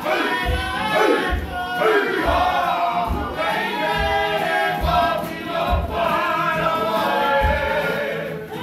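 A Māori group of men and women singing a waiata together to acoustic guitar, over a steady low beat a little faster than once a second.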